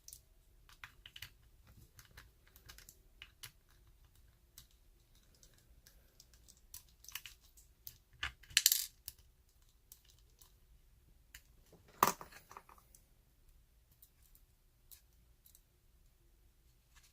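Small metal clicks and taps as a Lockwood oval padlock is handled and taken apart, with two louder clinks about halfway through and a few seconds later.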